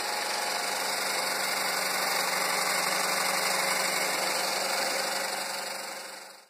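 Steady, unchanging metalworking machine noise on steel, with a low hum underneath, fading out near the end.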